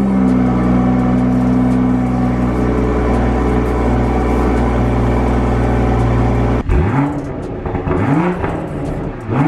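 2021 Toyota GR Supra 3.0's turbocharged inline-six running through its stock exhaust, held at steady raised revs. After a break about six and a half seconds in, it is blipped several times, each rev rising and falling quickly.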